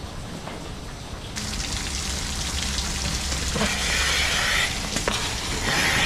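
Rotary milking parlour machinery running with a steady low hum, and bursts of hissing twice in the second half.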